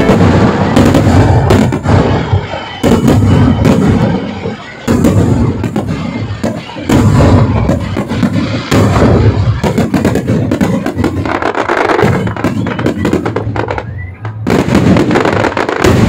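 Aerial fireworks display: a dense, continuous barrage of shell bursts, bangs and crackling, with a brief lull near the end before it picks up again.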